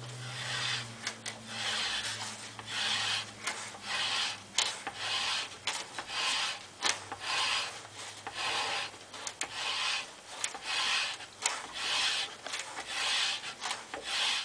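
Leather belt strop being drawn back and forth across a Wetterlings axe bit, a steady run of rubbing, hissing strokes a little more than one a second, with a few sharp clicks. It is stropping away the wire edge ("ribbon") left after polishing, bending it back and forth until it breaks off.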